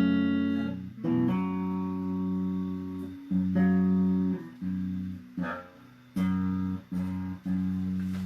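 Guitar chords strummed one at a time, each ringing for a second or so before being cut off, the chords coming quicker toward the end.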